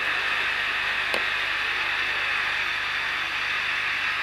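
Miniature steam locomotive running past: a steady hiss, with one sharp click about a second in.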